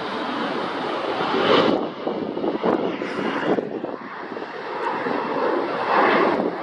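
Aircraft engines of a passing airliner, a rough rushing noise that swells about a second and a half in and again near the end.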